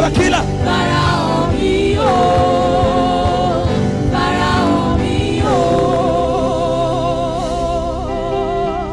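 Gospel worship music: sustained keyboard chords under long, held sung notes with vibrato.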